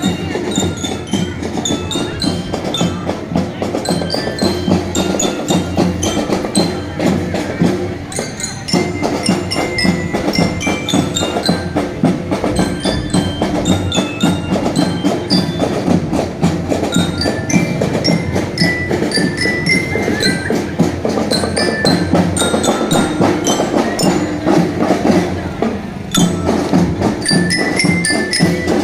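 Indonesian drumband (marching drum band) playing: a steady drive of snare and bass drum strokes under a bright glockenspiel-like bell-lyre melody.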